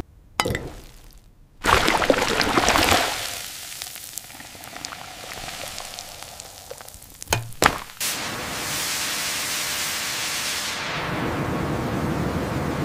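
Steam hissing from a pulp digester, first as a loud surge that fades, then as a steady hiss. Two sharp knocks come about seven and a half seconds in, and a low rumble joins the hiss near the end.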